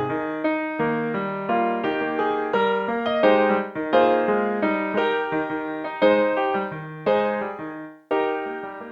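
Solo piano music: a gentle melody of struck notes, each fading away, with a brief break about eight seconds in.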